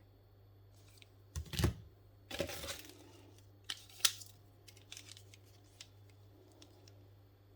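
Parcel packaging being opened and handled: two short tearing, rustling bursts in the first three seconds, then a sharp click about four seconds in and a few lighter taps, over a steady low hum.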